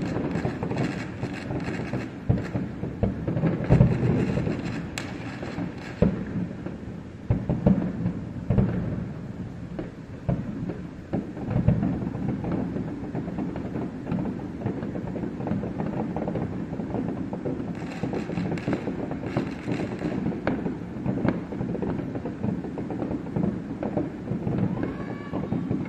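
Aerial fireworks display heard from a distance: a stream of bangs and crackles over a continuous low rumble. The bangs come thickest in the first six seconds, then more scattered.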